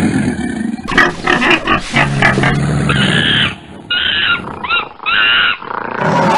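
Wild-animal sound effects for a crowd of beasts: a low growl, then a quick run of grunts about a second in, then a series of short, high squeals from about three seconds in.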